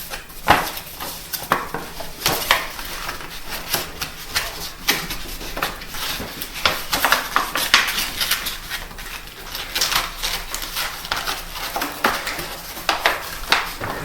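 Irregular clicks, clinks and rustling as paper is handled and rerolled around a blender's jar and blade.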